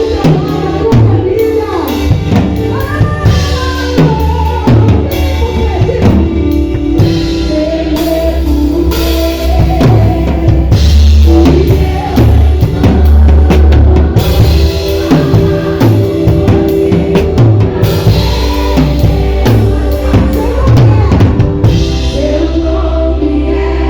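Music with a drum kit playing steadily, with bass drum and snare hits, under a sung melody.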